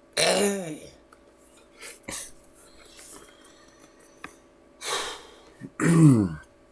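A man making comedic sound effects with his voice: a loud pitched cry that rises and falls in the first second, a short noisy burst about five seconds in, and a sound that slides steeply down in pitch about six seconds in.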